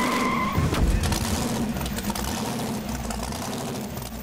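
Race-car sound effect under an animated logo. A tire squeal stops just after the start, a low thump comes under a second in, and then steady car-engine noise slowly fades.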